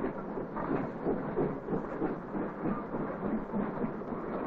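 Goods train running along the rails: a steady rumble with an uneven, repeating clatter.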